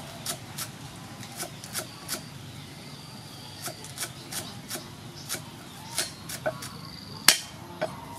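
Cleaver chopping green onions on a thick wooden chopping block: sharp knocks of the blade on the wood, roughly two a second, with a short pause after about two seconds and one much louder knock near the end.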